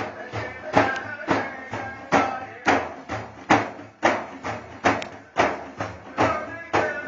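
Frame drums beating a steady, driving rhythm of about two strokes a second, with voices chanting along between the strokes.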